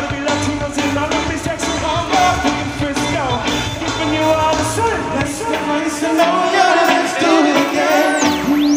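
Live reggae band music with singing over electric guitar and drums, loud through the speakers of a large hall. The deep bass drops out about six seconds in.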